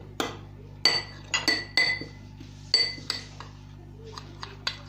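A metal spoon stirring an oily herb and spice mixture in a ceramic bowl, striking the bowl's side in a run of ringing clinks, with softer scraping taps near the end.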